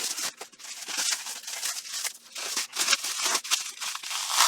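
Cellophane wrap being pulled and torn off a wrapped item: an irregular run of crinkling and ripping, loudest near the end.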